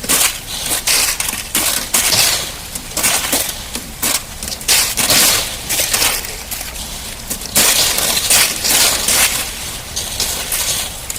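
Brittle material being crushed: dense, crackling crunches that come in waves, one every second or two.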